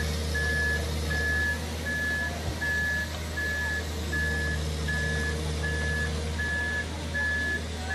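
Amphibious long-reach excavator on pontoon tracks moving through swamp mud: its travel alarm beeps evenly, about four beeps every three seconds, over the steady hum of its engine.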